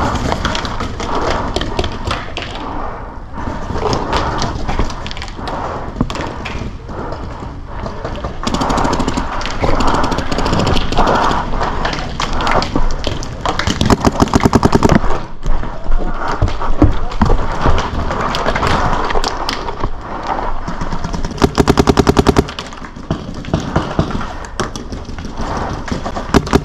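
Paintball markers firing: scattered pops throughout, with two rapid, evenly spaced strings of shots, about halfway through and again later on, as the loudest sounds.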